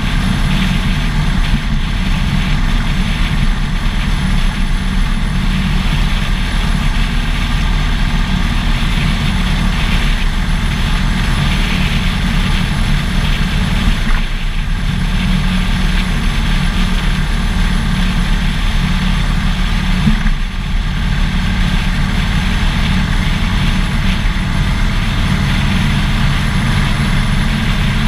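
Harley-Davidson Dyna Fat Bob's V-twin engine running steadily at highway speed, mixed with wind and road noise.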